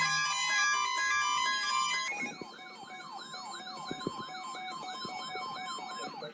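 A short melody of steady electronic notes. About two seconds in, it gives way to an electronic siren tone warbling rapidly up and down, three to four sweeps a second, which stops abruptly near the end.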